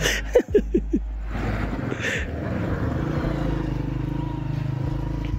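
Motorcycle engine running steadily as the bike passes close by, a low drone that starts about a second in.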